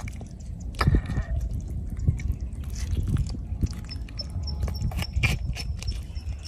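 Wet squelching and squishing of a hand kneading marinade into a scored whole fish, with short sticky clicks and drips of sauce. A steady low rumble runs underneath.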